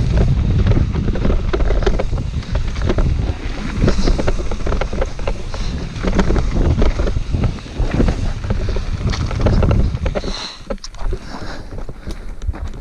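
Wind buffeting the camera microphone over the rattle and clatter of a mountain bike and its tyres on a rough dirt-and-gravel trail descent. The noise drops about ten seconds in as the bike slows.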